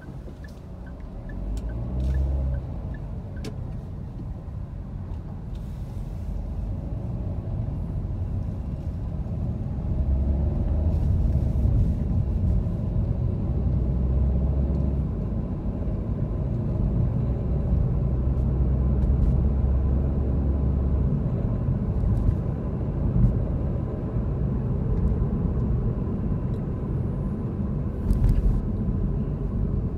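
Car driving in city traffic, heard from inside the cabin: a steady low rumble of engine and tyre noise that grows louder over the first ten seconds as the car picks up speed, then holds.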